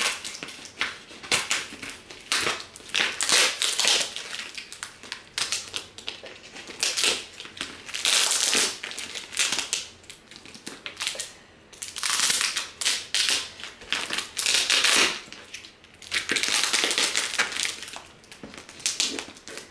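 Clear plastic packing tape being picked at, cut with scissors and peeled off a cardboard box, crackling and tearing in a string of noisy bursts, the longest of a few seconds each.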